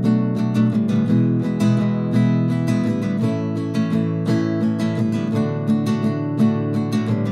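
Acoustic guitar music, picked and strummed, with a steady rhythm of quick note attacks.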